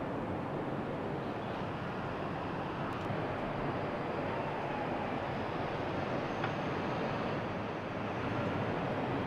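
Steady rushing outdoor noise with no distinct sound standing out.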